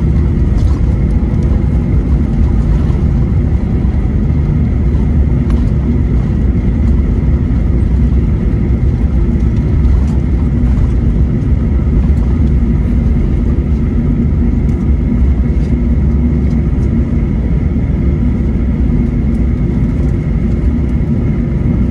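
Boeing 737-800 cabin noise from a window seat over the wing: a loud, steady low rumble of its CFM56-7B engines and wheels as it rolls slowly along the wet runway after landing, with a faint steady whine above it.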